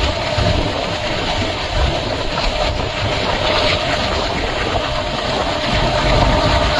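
Diesel-hauled express passenger train running along the track, heard from on board: a steady rumble of the coaches with a constant hum beneath it.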